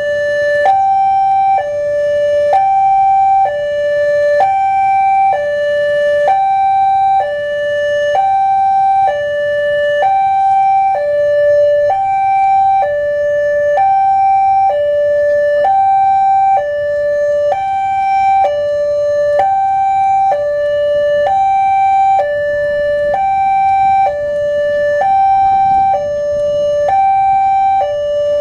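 Level crossing warning alarm sounding loudly while the barriers are down. It is an electronic two-tone signal, a higher and a lower tone alternating in a steady, unbroken repeating pattern, warning that a train is approaching.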